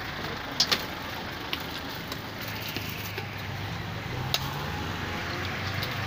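Food stall ambience: a steady low hum with a few sharp clinks of utensils against stainless steel bowls, two close together about half a second in and one more past the four-second mark.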